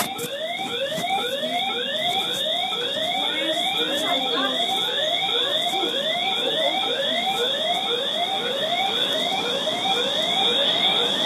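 Building fire alarm sounding for a fire drill: a fast, evenly repeating rising whoop, about two to three sweeps a second, over a steady high-pitched tone.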